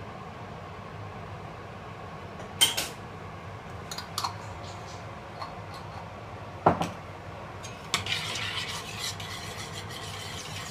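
Metal utensils clinking against a stainless steel saucepan: a few separate clinks, the loudest about two-thirds of the way in. In the last few seconds comes continuous scraping and clinking as a cream-and-mustard sauce is stirred in the pan.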